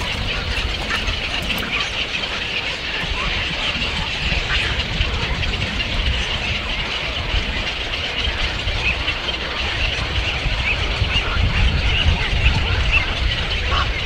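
Dense chatter of many small birds calling at once over a steady low rumble.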